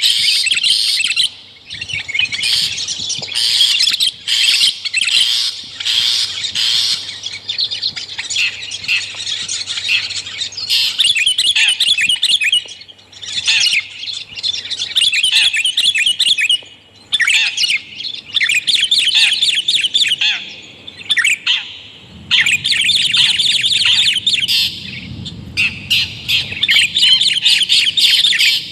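Bird-lure recording of long-tailed shrike and sooty-headed bulbul song mixed together: rapid, dense chattering and chirping phrases in bursts of a few seconds, broken by short pauses.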